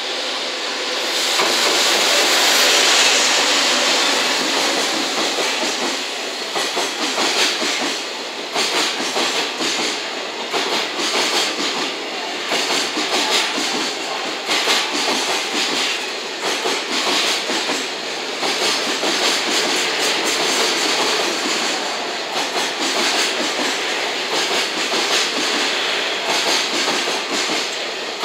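JR Freight EF210 electric locomotive passing close, loudest in the first few seconds, followed by a long container freight train rolling by. The wagons' wheels clack over rail joints in a repeating pattern of knocks about once a second over a steady rumbling hiss.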